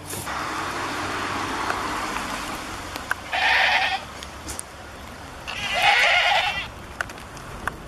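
Goat bleating twice, a short bleat then a longer, louder one about two seconds later, with a steady hiss of noise under the first few seconds.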